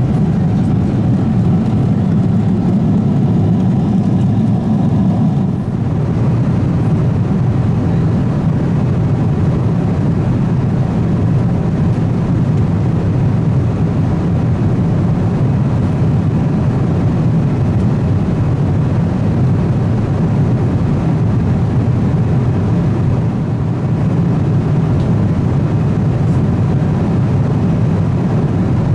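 Economy cabin noise of a Boeing 777-200ER at cruise: a steady low rumble of airflow and engines that does not change.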